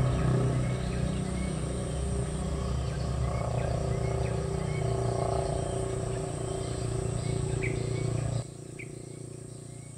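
Swamp-forest insects and animal calls: a steady high insect whine with a short chirp repeating about every half second, over a low steady hum that drops away abruptly about eight seconds in.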